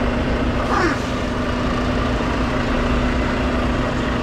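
Semi truck's diesel engine running at low revs, a steady rumble with a constant low hum.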